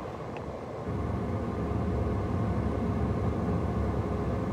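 Steady low vehicle rumble heard inside a car cabin, a little louder from about a second in.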